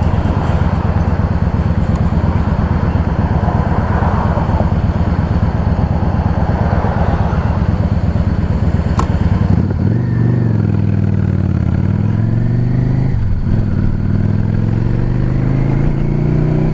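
Yamaha V Star 650's air-cooled V-twin idling steadily, then pulling away about ten seconds in. It revs up through the gears, with an upshift about three seconds later and another near the end.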